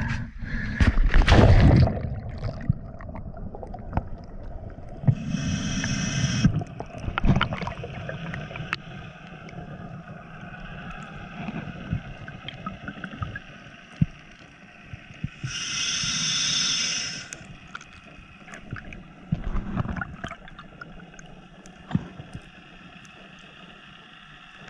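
A loud splash as the diver enters the water about a second in, then the steady hum and faint clicks of the sea heard underwater. Twice, once near 5 s and again near 16 s, a scuba regulator's exhaled bubbles rush past for about a second and a half.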